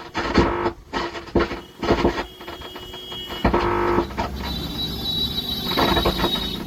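A faulty 120-watt amplifier's speaker gives out irregular crackling and rumbling over a steady hum, with a brief high tone partway through; this is the hissing, crackling fault the repairer likens to thundering clouds.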